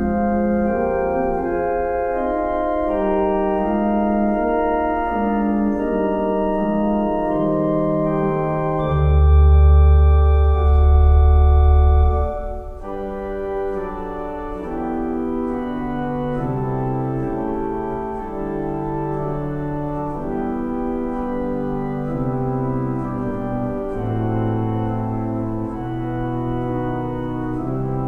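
Church organ played from a drawknob console: sustained chords with moving upper notes over a bass line. A deep pedal bass note comes in loudest about nine seconds in and holds for about three seconds, after which the playing is softer.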